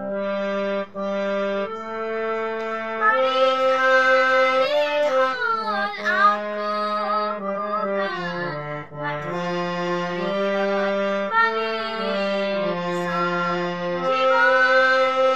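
Harmonium playing a melody over held reed notes; from about three seconds in a girl sings along, her voice sliding and wavering between notes.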